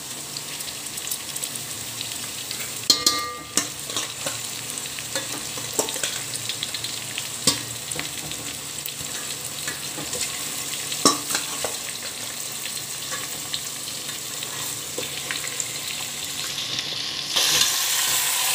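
Marinated mutton frying in hot ghee in an aluminium pot: a steady sizzle, with a metal slotted spoon scraping and clinking against the pot now and then, one clink ringing briefly about three seconds in. The sizzle gets louder near the end.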